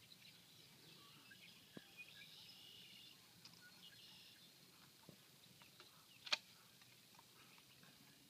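Near silence with faint bird chirps and twitters in the first half, a few soft ticks, and one sharp click about six seconds in.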